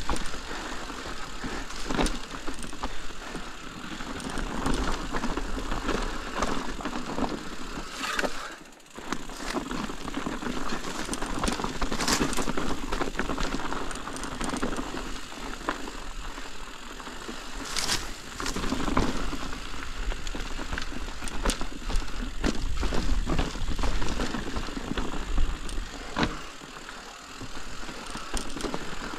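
Ibis Ripmo full-suspension mountain bike descending a rough trail: tyres crunching over loose rocks and the bike rattling, with many sharp clacks from rock strikes. It goes briefly quieter twice, about nine seconds in and again about twenty-six seconds in.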